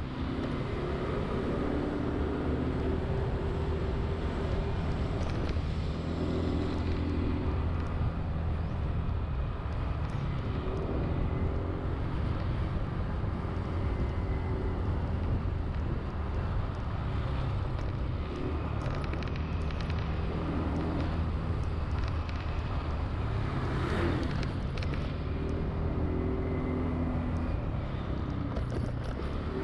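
Honda Zoomer-X scooter's small single-cylinder engine running steadily under way, with road and traffic noise around it; its pitch rises and falls now and then with the throttle. A brief louder whoosh comes near the end, as of a vehicle passing close.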